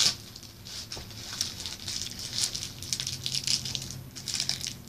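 Candy packaging crinkling and rattling in a quick, irregular crackle, with one sharp click right at the start.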